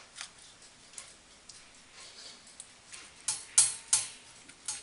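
Silicone pastry brush dabbing beaten egg onto puff pastry hearts on baking paper. There are faint light taps at first, then several short, crisp swishing strokes in the last second and a half.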